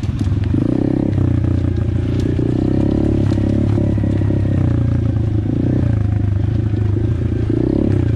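Dirt bike engine running at low revs on a rough trail, the throttle opening and easing off every second or two, with a few light knocks from the bike over the ground.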